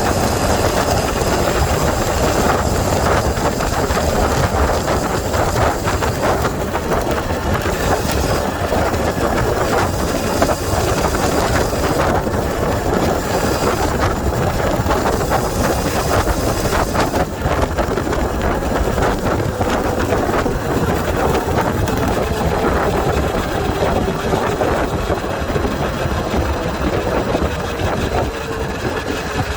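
Sur-Ron electric dirt bike's mid-drive motor running under way, a whine that drifts in pitch with speed, under heavy wind buffeting on the phone's microphone. The drivetrain is noisy, as mid-drives typically are.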